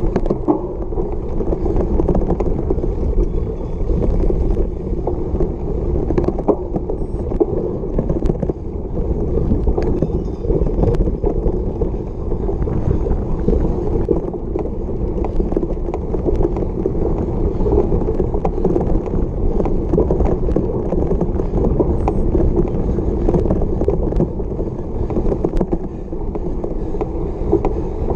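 Cyclocross bike ridden hard over bumpy grass: a steady rumble of tyres and rushing air, with many small rattling clicks from the bike.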